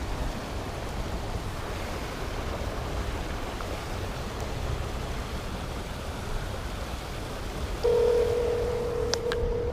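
Steady wind and flowing-water noise. About eight seconds in, a phone's ringback tone sounds once for about two seconds as an outgoing call rings.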